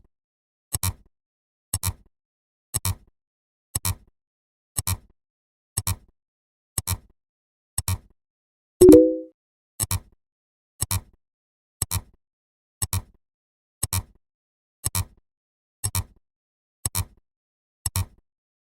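Sound effects ticking off numbers: a short, sharp click-like pop about once a second, evenly spaced. About nine seconds in, a single louder, pitched blip replaces one of them, which fits a marker on every tenth number.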